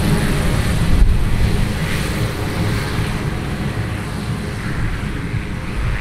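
Cessna 208 Caravan's PT6A turboprop engine and five-bladed propeller running at taxi power: a steady rumble with a hiss, growing a little fainter after about a second.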